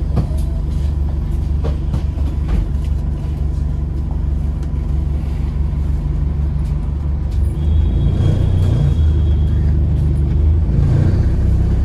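Alexander Dennis Enviro400 Hybrid double-decker bus heard from inside the saloon while moving: a steady low hum of the diesel-electric hybrid drivetrain mixed with road noise. It gets louder about eight seconds in, and a thin high tone sounds for about two seconds at the same time.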